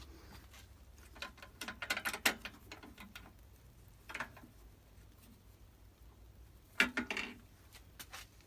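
Small hard objects being handled, clicking and rattling in short clusters, the loudest about two seconds in and again near seven seconds.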